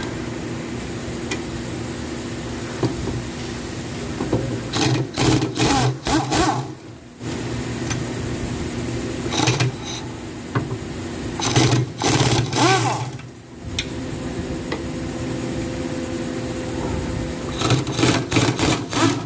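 Impact wrench run in four short rattling bursts, undoing the rear hub bolts on a 2012 Hyundai Sonata, over a steady mechanical hum.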